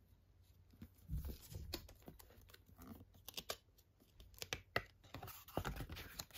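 Handling noise from a metal tin and steelbook cases: scattered light clicks and taps, with a couple of soft thumps, about one second in and again near the end.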